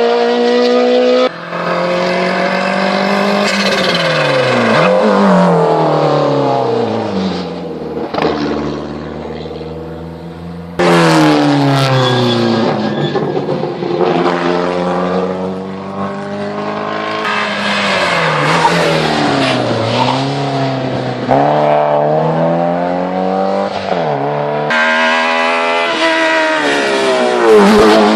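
Hill-climb race cars' engines at full throttle, revving up and dropping in pitch at each gear change as the cars climb past. The sound switches abruptly to a different engine three times.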